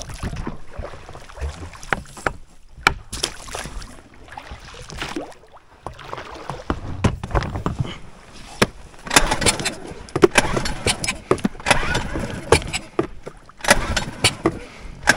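Small boat on a lake being worked by hand: water splashing and sloshing against the hull, with irregular knocks and clatter, busier in the second half.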